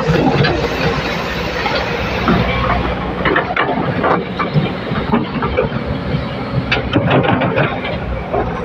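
L&T excavator's diesel engine running steadily, with a busy scatter of metallic knocks and clanks from about three seconds in.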